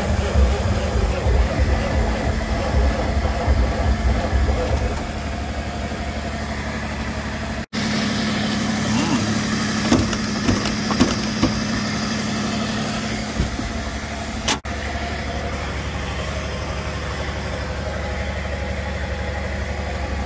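Truck engine idling steadily, with a few clunks and knocks partway through and two brief dropouts in the sound.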